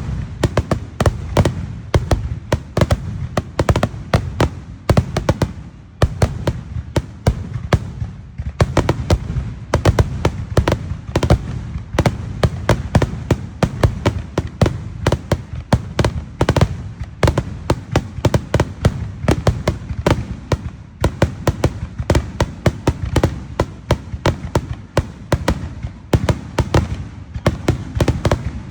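Aerial fireworks display going off in a rapid, continuous barrage of bangs and crackles over a deep rumble of booms, with brief lulls about six and eight seconds in.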